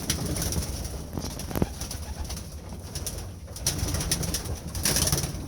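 Young racing pigeons cooing inside the loft, with scattered short clicks and taps.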